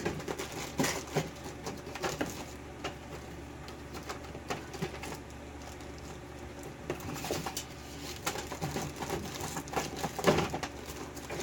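Small metal clicks, taps and scrapes at irregular intervals as tools work inside a Dorma pin-tumbler lock's plug to free a stuck spool pin.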